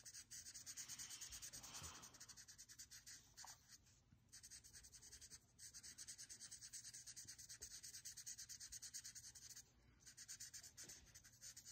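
Faint, quick scratching of a Sharpie marker tip on paper, rapid back-and-forth strokes colouring in a shape, with a few brief pauses.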